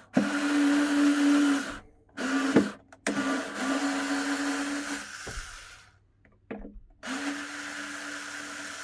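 Electric drill running in four short bursts, driving a screw in to cut the full hole and then backing it out; the third run tails off slowly before the motor stops.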